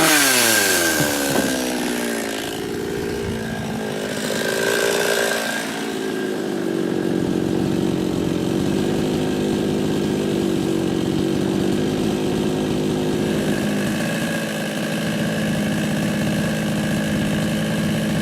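52cc two-stroke Chinese chainsaw with a 20-inch bar coming off a cut through willow: the engine revs drop away over the first two seconds, it revs up briefly about four seconds in, then settles to a steady idle.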